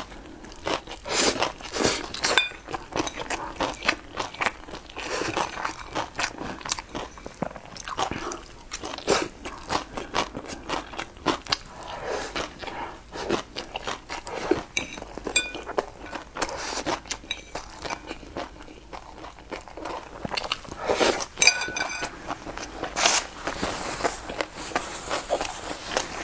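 Close-up mouth eating sounds: a person slurping in and chewing spicy noodle-like strips, with many short wet smacks and bites.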